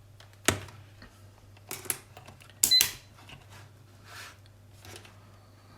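A few sharp clicks and clatters of small tools and parts being handled on a workbench, the loudest about two and a half seconds in, over a low steady hum.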